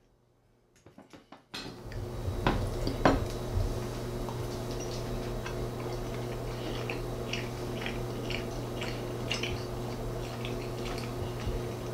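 After a second and a half of silence, a steady low hum with a couple of sharp clinks of a metal knife and fork on a ceramic plate about two and a half and three seconds in, then fainter light clicks.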